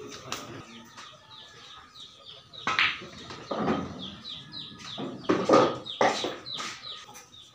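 Chickens clucking with many short, high, falling chirps, and a few louder calls. The sharp click of a pool shot comes about three seconds in.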